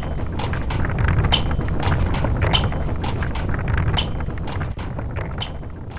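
Kick scooter rolling along: a steady low rumble of its small wheels, with a short high squeak about every second and a half and lighter clicks in between.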